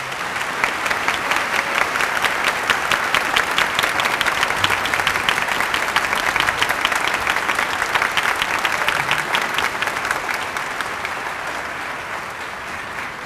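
Audience applauding: many hands clapping together, starting at once, holding steady, then slowly fading toward the end.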